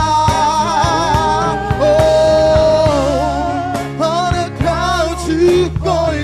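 Gospel song: a voice sings long, wavering notes with instrumental accompaniment.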